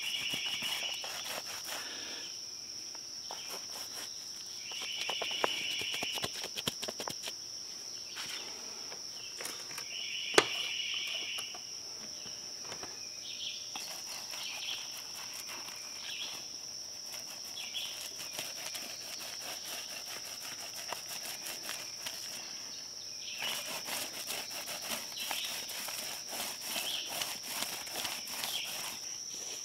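Insects droning steadily at a high pitch, with a short pulsed chirping call that comes back about every five seconds. Underneath are the short scratchy strokes of a paintbrush scrubbing thick sealer onto concrete block, busiest near the end.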